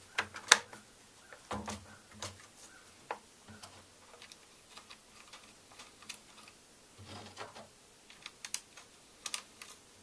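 Irregular light clicks and soft knocks of a chainsaw bar and chain being handled and seated onto the saw's studs and drive gear, the sharpest click about half a second in and a quick run of clicks near the end.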